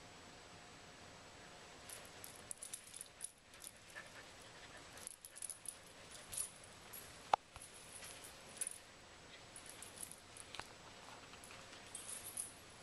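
Faint, scattered metallic jingling and clinking from the hardware on a Samoyed's collar and leash as the dog moves about, with one sharper click a little past seven seconds in.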